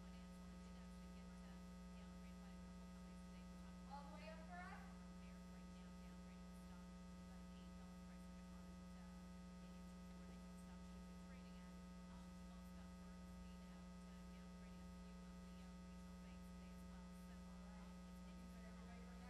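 Near silence with a steady electrical mains hum. A faint voice is heard briefly about four seconds in.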